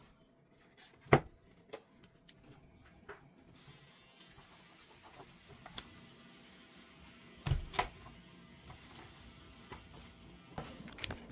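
Thick colour pages of a hardcover graphic novel being flipped and riffled, a soft paper rustle with small ticks. A sharp click about a second in and two knocks around seven and a half seconds come from the book being handled.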